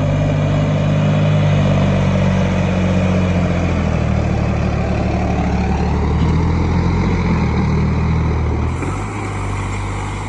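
Sonalika DI 55 tractor's diesel engine running loud and hard under heavy load, straining to pull out. Its note sags slightly about four seconds in, and the engine eases off about nine seconds in.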